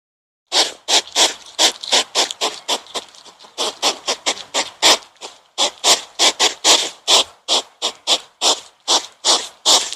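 An animal making rapid, repeated breathy, noisy calls, about two or three a second, starting half a second in and running on with a brief softer stretch around the middle.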